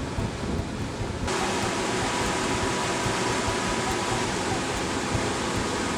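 Motorboat under way on a river: a steady rush of water and wind with a faint motor hum running under it. About a second in, the sound abruptly becomes louder and brighter.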